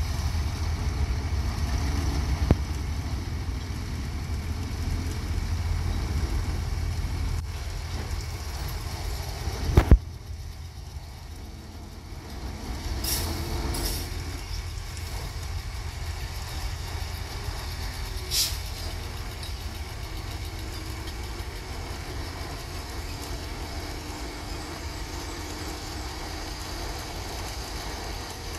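Hyundai dump truck diesel engines running with a steady low rumble, one truck working as its tipper body is raised to dump dirt. A sharp loud knock about ten seconds in, and a few short sharp sounds after it.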